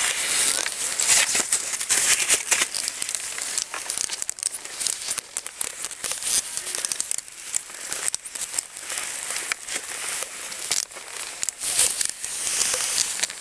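Continuous rustling and crackling close to the microphone, a dense run of small irregular clicks over a hiss, with no steady tone or rhythm.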